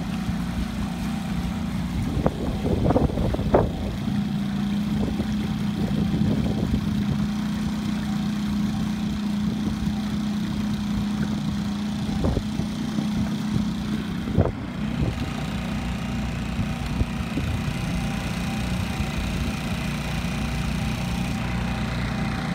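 Boat motor running steadily at low speed, with a few short knocks.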